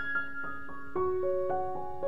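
Background music: a slow keyboard melody of single struck notes, each ringing on and fading, a new note about every half second.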